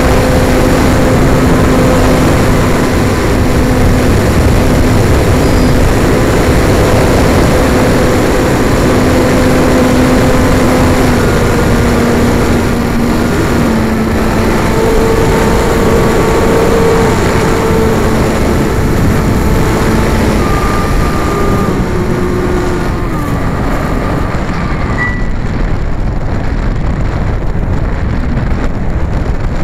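Onboard sound of a radio-controlled airplane in flight: a steady rush of wind over the microphone with the propeller motor's whine, which steps down in pitch several times as the throttle changes. About 23 seconds in the whine stops, and only the wind rush is left as the plane glides with its propeller stopped.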